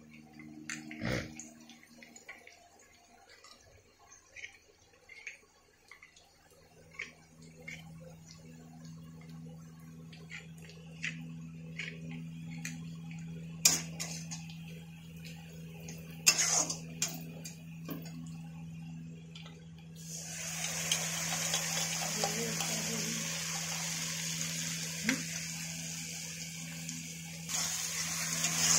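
A metal spatula scrapes and clicks against a steel kadai as greens are stir-fried. About twenty seconds in, a loud sizzling hiss starts suddenly as liquid goes into the hot oil.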